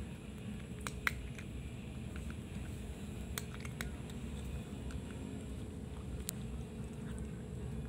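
Cat eating dry kibble from a plastic bowl: scattered sharp crunches at irregular moments, over a steady low hum.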